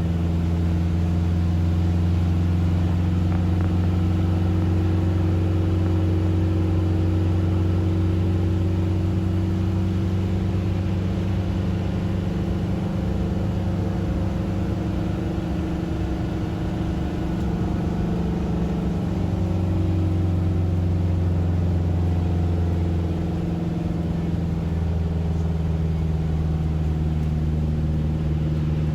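A motor vehicle driving along, heard from inside: a steady low engine and road drone whose pitch drifts slowly up and down.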